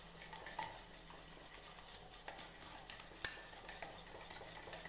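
Wire whisk beating a thick mix of roasted gram flour and warm ghee in a steel bowl: soft, steady scraping with light ticks of the wires against the bowl, and one sharper clink a little past three seconds in.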